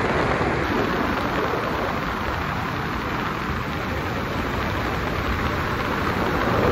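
Steady rush of airflow noise in the cockpit of a Grob Twin Astir, an unpowered two-seat glider, in flight.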